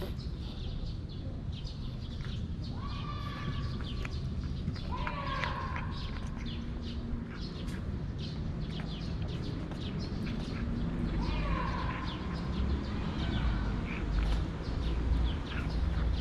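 A cat chewing and lapping wet food from a steel dish close up, making quick wet clicks and smacks. About three short, falling bird calls sound in the background.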